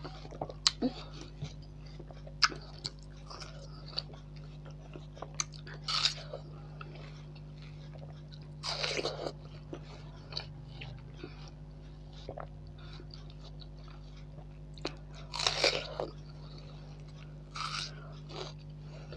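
Close-up biting and chewing of juicy watermelon slices: sharp crisp clicks of bites, with longer wet crunching bursts about 9 and 16 seconds in. A steady low hum runs underneath.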